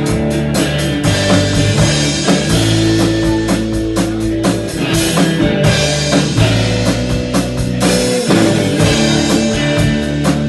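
Instrumental break of a rock song: electric guitar and bass with a steady drum-kit beat, no singing.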